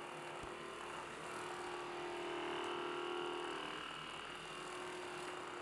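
Percussion massage gun running with a steady, faint motor hum, a little louder in the middle.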